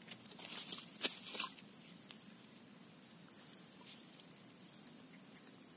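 A few short rustles and clicks of handling close to the microphone in the first second and a half, then a faint steady outdoor background.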